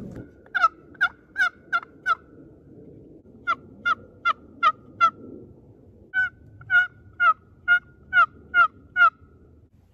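Wooden box turkey call stroked in three runs of hen-turkey yelps: five notes, a pause, five more, a pause, then eight, about two or three notes a second. Each note breaks from a lower to a higher pitch.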